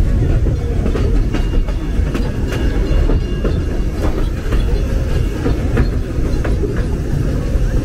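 Puffing Billy narrow-gauge heritage train running along the track, heard from on board: a steady loud rumble with the repeated click of wheels passing over rail joints, and a few brief high squeals.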